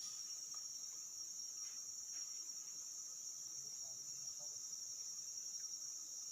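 Steady high-pitched drone of an insect chorus, with a weaker lower insect tone beneath it.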